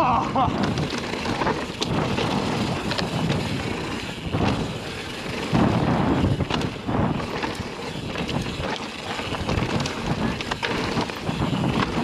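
Mountain bike descending a rough trail at speed: wind rushing over the camera's microphone, with tyres on dirt and a steady run of clicks and knocks from the bike over the bumps.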